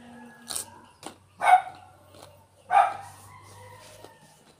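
A dog barks twice, a little over a second apart, over the crisp crunching of raw vegetables such as cucumber and carrot being chewed.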